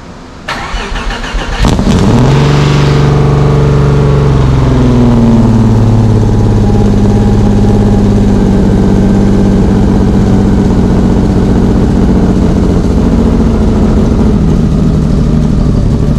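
Subaru SVX's EG33 flat-six cold-started through its updated exhaust. The starter cranks for about a second, then the engine catches and flares to a high fast idle. A few seconds in it settles down to a steady idle, still with a vacuum leak that the owner has not managed to cure.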